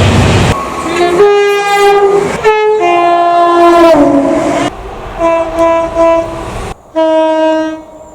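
A run of separate horn blasts, one after another with abrupt cuts between them, each a chord of several steady notes sounding together. One blast drops in pitch partway through, and the start has a rumbling clatter under it.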